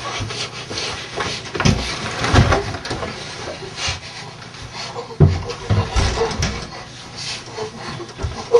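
Two people struggling at close quarters: strained, gasping vocal noises and scuffling, with several dull thumps in the first half and again about two-thirds of the way through.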